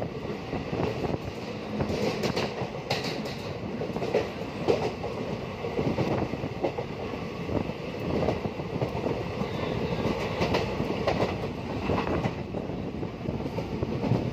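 Passenger train running at speed, heard from inside the coach: a steady rumble of wheels on rail, broken by irregular clacks as the wheels cross rail joints.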